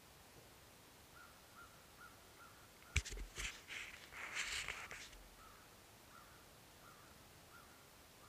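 Handling noise close to the microphone: a sharp knock about three seconds in, then a couple of seconds of scraping and rustling as the camera is jostled. A bird calls faintly with short, evenly repeated notes before and after.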